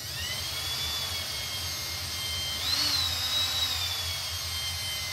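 Battery-powered hand drill running under load, boring a hole through a piece of aluminium plate: a steady motor whine whose pitch jumps up briefly about halfway through, then settles back.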